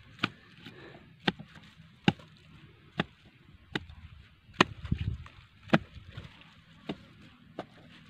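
A long-handled digging tool striking and chopping into soil and roots around the base of a shrub being dug out, sharp single strikes about once a second, with a duller thud of shifting earth about five seconds in.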